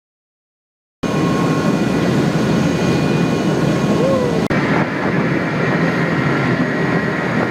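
Boat running under engine, a steady loud rumble and wash noise that starts abruptly about a second in, with a sudden change in the sound a little past halfway.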